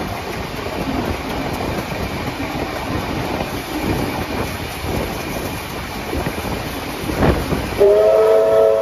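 Steam trains running side by side at speed: steady rumble and clatter of carriage wheels on the track, with a sharp knock a little past seven seconds in. Near the end a steam locomotive's chime whistle sounds several notes at once for about a second, louder than the running noise.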